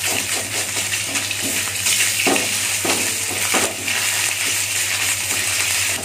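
Minced meat and garlic sizzling in oil in a steel wok while a wooden spatula stirs them, scraping and knocking against the pan. A few louder scrapes come in the middle.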